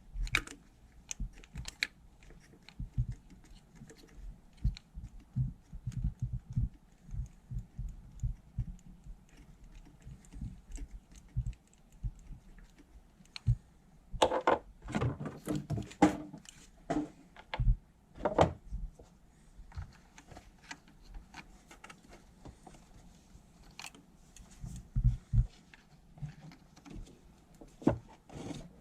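Irregular clicks and metal clinks of hand tools working on the 10 mm bolt that holds the exhaust VVT solenoid on a 2.4 L engine, with a denser run of louder knocks about halfway through.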